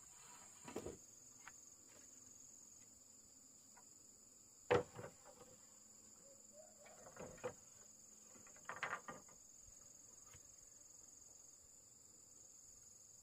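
Faint, steady high-pitched insect drone, with a few scattered knocks and rustles: the sharpest knock comes about five seconds in, and a short cluster of knocks follows around nine seconds.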